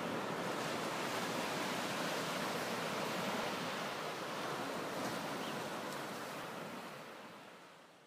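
Sea surf washing onto a sandy beach: a steady rushing of small breaking waves that fades out near the end.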